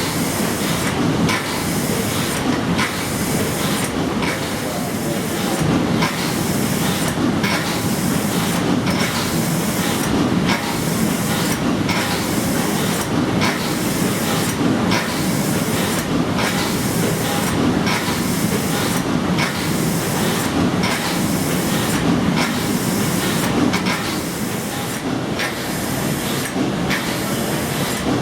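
The paddle steamer Blümlisalp's Escher Wyss two-cylinder compound steam engine running steadily under way. It makes a constant hissing, clattering run with a regular beat a little faster than once a second as the cranks turn.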